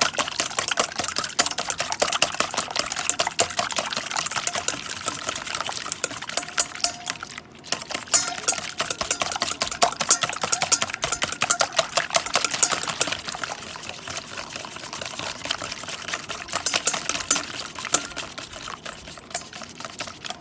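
Eggs being beaten in a bowl: a utensil clicking rapidly against the bowl with the liquid sloshing, with a brief pause about seven seconds in.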